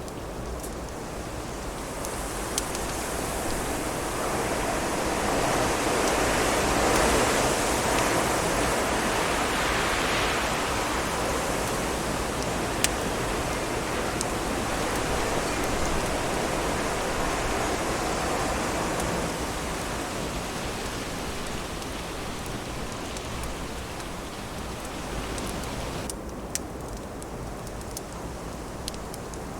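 Wind blowing in a long gust that swells up, is strongest about seven to ten seconds in, then dies away, with a few sharp crackles from a wood fire.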